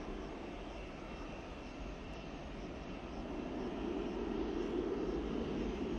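Boeing 737-800's CFM56-7B turbofan engines running as the airliner taxis, a steady jet rumble with a faint high whine. The engine noise swells about four seconds in.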